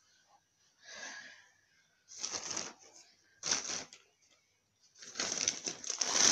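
Clothes rustling as they are handled close to the microphone, in four short bursts, the last one longer and louder.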